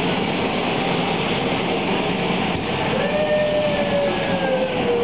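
Hurricane simulator booth's blowers running, a loud, steady rush of wind through the open door. In the second half, a held tone slides slowly lower in pitch over the roar.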